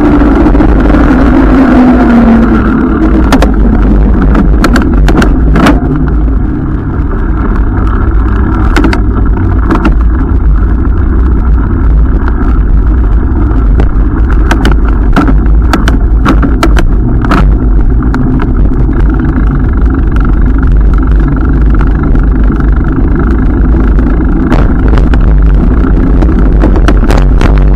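Wind and road rumble on a bike-mounted camera's microphone while the bicycle rolls along, with sharp clicks and rattles from bumps in the pavement. In the first two seconds a passing vehicle's engine hum falls in pitch.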